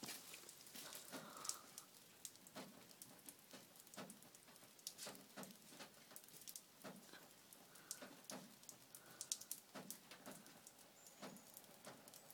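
Near silence broken by a faint, irregular patter of rain dripping, a few light ticks a second.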